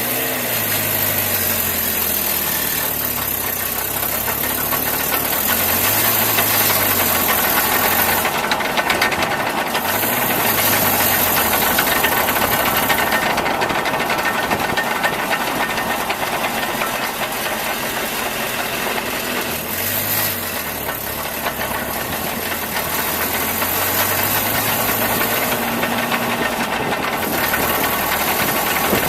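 Nissan pickup truck's engine running, heard from underneath the truck, under a steady rushing noise; the engine pitch rises and falls several times.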